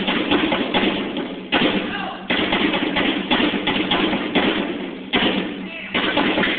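Live drums playing a dense, driving rhythm for African dance, with sharp strikes and heavier accents every second or so. The recording is bad: muffled and lacking highs.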